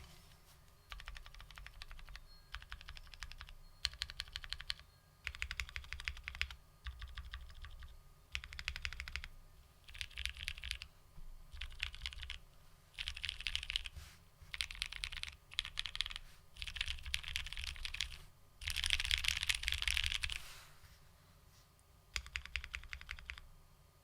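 Typing on a Bakeneko60 custom mechanical keyboard with linear frankenswitches (Moyu Black stems in Hyperglide Black housings, Gateron KS-3 springs), an FR4 plate and GMK ABS keycaps. Fast keystrokes come in bursts of one to two seconds with short pauses between them; the longest and loudest burst comes near the end.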